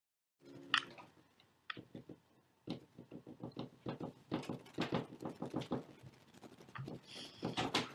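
Irregular light clicks and taps, several a second, in a small room; they start after a short silence and come thicker from about two and a half seconds in.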